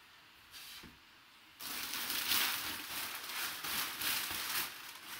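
Crumpled brown kraft packing paper rustling and crackling as hands pull it out of a cardboard box. There is a short rustle about half a second in, then steady crinkling from about a second and a half in.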